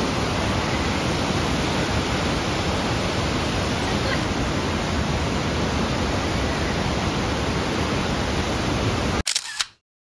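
Steady rush of falling water from Kegon Falls, a tall waterfall, cutting off abruptly near the end. It is followed by a brief camera shutter click.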